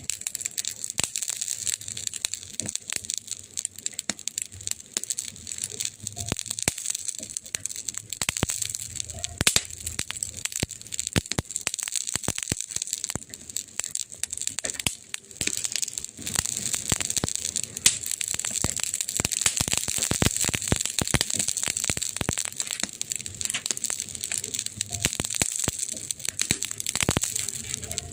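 Wood fire crackling, with dense, irregular snaps over a steady hiss.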